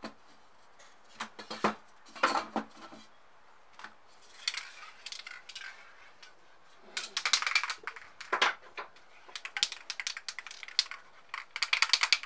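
Metal aerosol spray-paint cans clinking and knocking against each other as they are handled and set back in a row, in scattered clicks with a short metallic ring and a few quick clusters of clatter.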